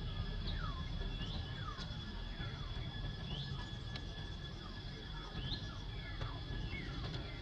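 Outdoor ambience with small birds chirping: short gliding calls, some falling and some rising, about two a second. They sit over a steady high-pitched whine and a low wind-like rumble.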